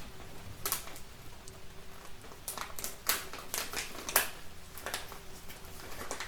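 Wood fire in a fireplace crackling, with a scatter of sharp pops bunched together in the middle, over a steady hiss of rain.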